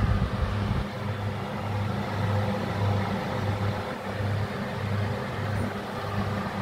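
Electric fan oven running with a steady motor hum that throbs about twice a second, and a low bump at the start.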